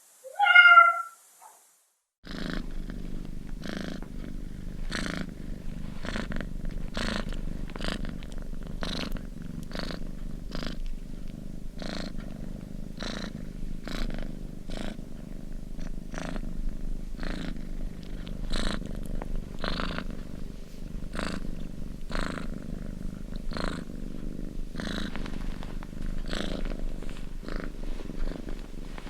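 A domestic cat meows once, loudly and briefly; after a short gap a cat purrs steadily, the purr pulsing about twice a second.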